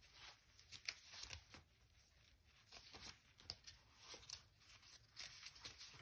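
Faint rustling and flicking of paper sheets, a stack of patterned scrapbook papers being leafed through by hand.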